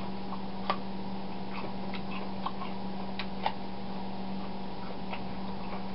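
Steady hum in a kitchen, with a few faint, irregular clicks from hands handling cut persimmon pieces.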